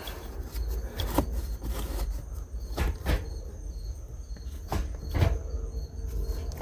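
Scattered light clicks and knocks from handling the gear shifter and its freshly fitted shift boot, about half a dozen over several seconds. Crickets chirp faintly and steadily behind them.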